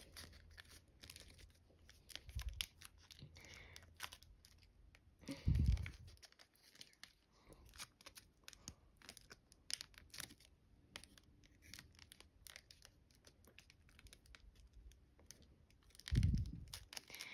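Folded paper crinkling and crackling under the fingers as an origami jet model is pinched and shaped: a run of small, dry crackles, with two duller bumps, one about five seconds in and one near the end.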